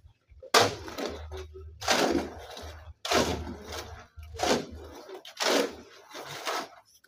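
Steel shovel scraping and scooping through a pile of cement, sand and gravel being mixed by hand on the ground, about five strokes at a steady pace, each starting suddenly.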